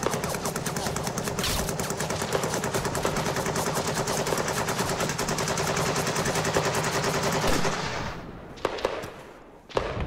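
Rapid, continuous machine-gun fire that dies away about three-quarters of the way through, followed by a couple of single sharp shots.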